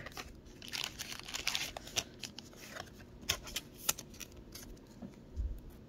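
Pokémon trading cards handled and slid against one another in the hands: an irregular run of soft flicks and rustles, with a dull bump near the end.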